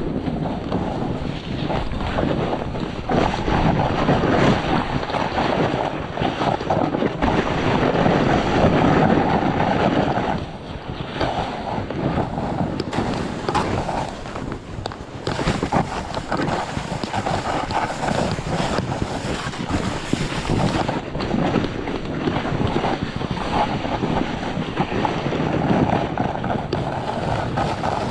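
Wind rushing over the microphone while a snowboard slides and carves through snow: a continuous rushing hiss whose level rises and dips, with brief lulls about ten and fourteen seconds in.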